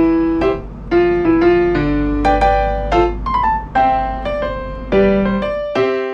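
Background music: a piano or electric piano melody of separate struck notes, several a second, over a low steady hum that drops away near the end.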